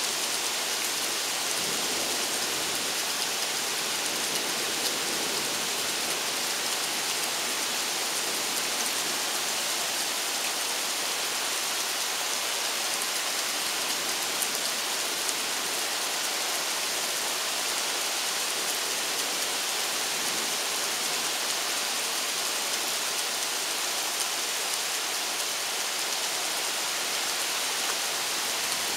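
Steady rain falling during a thunderstorm, an even hiss that holds at one level throughout.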